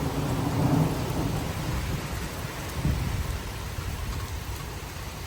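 Thunder rumbling, fading away over the first second or two, over steady heavy rain.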